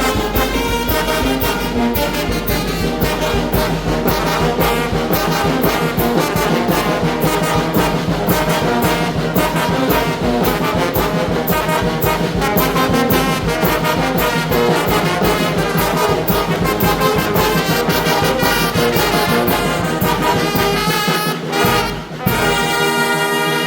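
Mexican brass banda playing a huapango: trumpets and trombones over a steady drum beat. Near the end the music breaks off for a moment, then closes on a long held chord.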